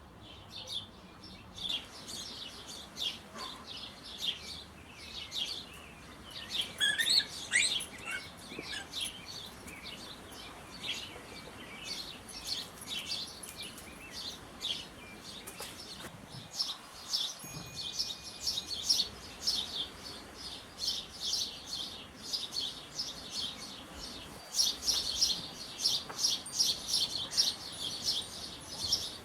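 Small songbirds chirping: short, high chirps repeated all through, with a louder cluster of falling calls about seven seconds in and a fast, dense run of chirps over the last few seconds.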